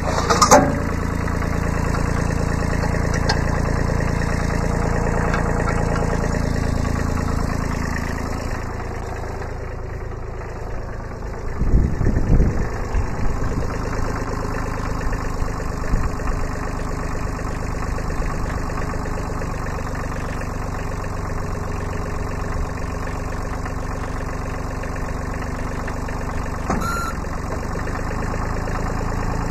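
Kubota B7100 sub-compact tractor's three-cylinder diesel idling steadily, with a short run of low thumps about twelve seconds in and a couple of sharp clicks.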